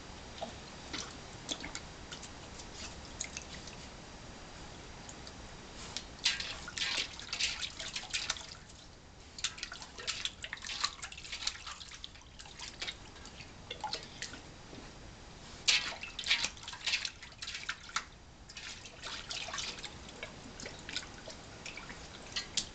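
A large white dog lapping water from a stainless steel bowl: quick wet laps in bouts of a second or more, with short pauses between.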